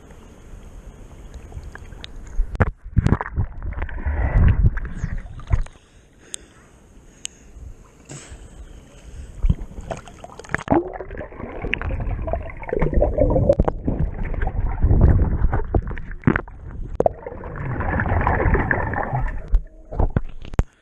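Swimming-pool water splashing and sloshing close to the microphone as a swimmer moves through it, in three long surges with quieter stretches between.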